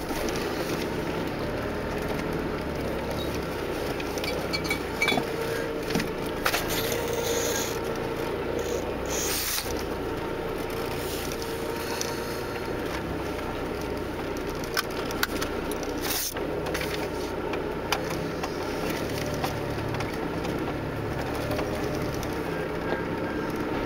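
Off-road 4x4 engine running at low speed, heard from inside the cabin as a steady drone, with a few short knocks and scrapes as the vehicle crawls over rough ground.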